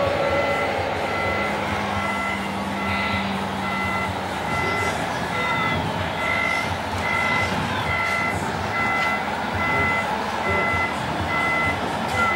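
Reversing alarm of a radio-controlled model Liebherr L574 wheel loader's sound module, beeping steadily about twice a second over the model's running noise.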